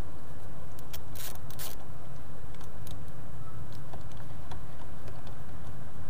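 A screwdriver turning the throttle position sensor's mounting screws on the throttle body: scattered sharp clicks, two louder ones a little over a second in, over a steady low rumble.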